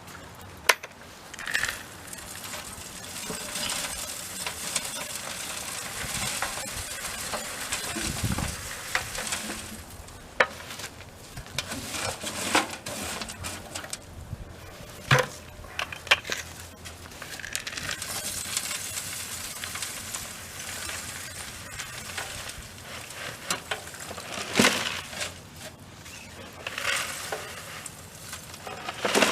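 Charcoal fuel being loaded into a gasifier's hopper: hard lumps rattling, clinking and scraping against each other and the metal, with scattered sharper clinks.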